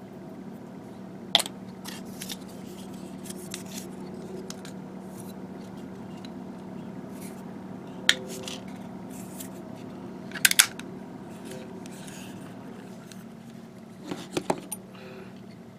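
Hobby nippers snipping plastic model-kit parts, a few sharp snips scattered through, a quick pair about ten seconds in and a short cluster near the end, over a steady low hum.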